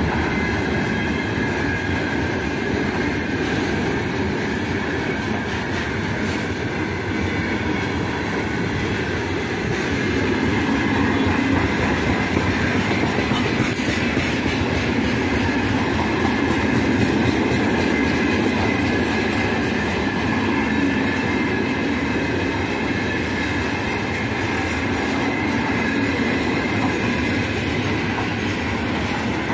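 Wheels of a long, heavily loaded freight train's open-top gondola wagons rolling past at speed: a steady rumble and clatter on the rails, continuous throughout.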